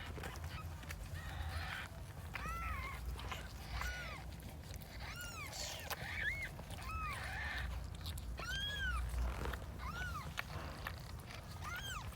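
Newborn Persian kittens mewing: short, high-pitched, rising-and-falling squeaks, about eight of them spaced roughly a second apart, over a low rumble.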